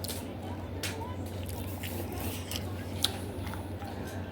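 A person chewing food close to the microphone, with wet mouth clicks and smacks, a sharp one about three seconds in, over a steady low hum.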